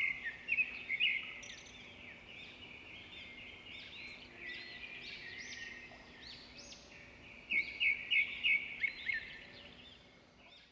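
Many small birds chirping and twittering together, a dense chorus of short rising and arching calls, with louder runs of sharp chirps near the start and again about three quarters of the way in.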